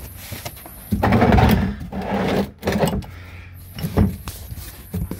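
Handling noises while getting set to drain engine oil: a rustling scrape lasting about a second and a half, then a few short knocks and clicks as things are moved and set down.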